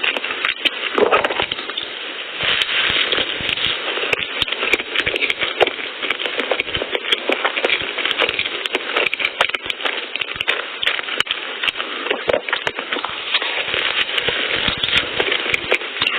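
Mukbang eating sounds: the chewing and mouth clicks of someone eating soft cream-filled bread and pastries, heard as a dense run of small clicks.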